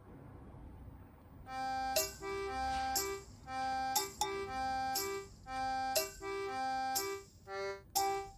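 Background music: a bouncy tune played in short repeated phrases about once a second, starting about a second and a half in after a faint low hum.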